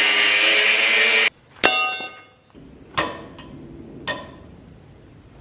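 Angle grinder cutting through steel with a loud, steady whine, which stops abruptly about a second in. A sharp metallic clang that rings on follows, then three lighter metallic clinks.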